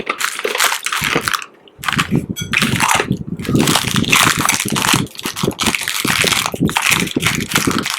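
Hard candy being crunched close to a microphone: loud crackling in runs, broken by two short pauses.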